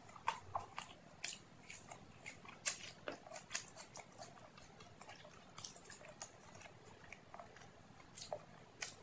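Close-up mouth sounds of someone chewing a mouthful of bhatura (fried bread) with chole: irregular short smacks and clicks, a few a second.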